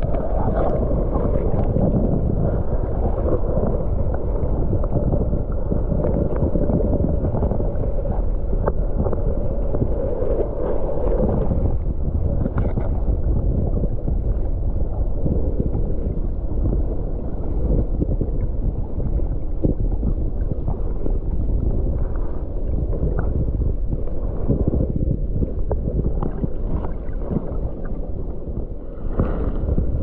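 Fast, high river water rushing steadily, a swollen runoff flow, with a heavy low rumble of wind on the microphone.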